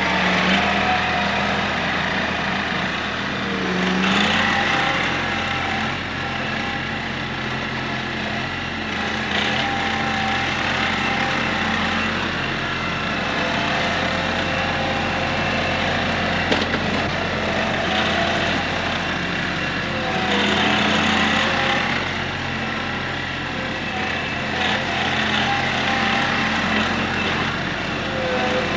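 KIOTI CK3510 SE compact tractor's diesel engine running steadily while the tractor drives and carries a log in its front-loader root grapple. The engine note swells and rises briefly about four seconds in and again around twenty seconds in.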